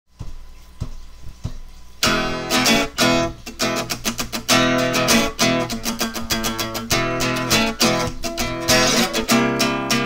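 Intro background music led by strummed guitar, starting softly with a few light taps and coming in fully about two seconds in.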